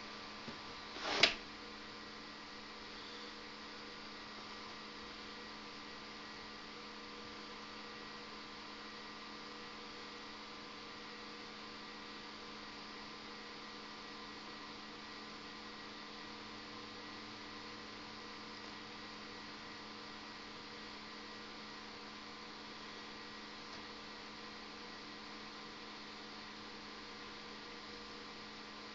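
Steady hum of a powered-on desktop PC test bench, its power-supply and CPU cooler fans running, holding several fixed tones. A single sharp click about a second in.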